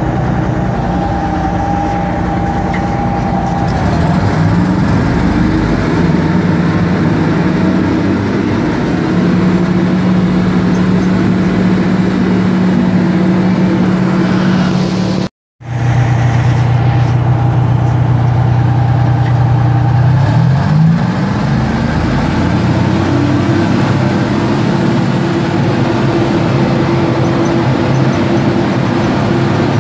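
Detroit Diesel 12V-71T turbo diesels of a Wabco 333FT twin-engine motor scraper running under way, heard from inside the cab. The engine note climbs in pitch about four seconds in and again about two-thirds of the way through, holding steady in between. The sound cuts out very briefly near the middle.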